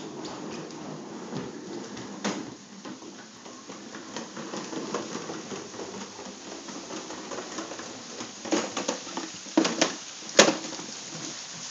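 Plastic push toy with wheels being rolled across hard wooden and tiled floor, with a run of small clicks and clatters and a few louder knocks near the end, the loudest of them about ten seconds in.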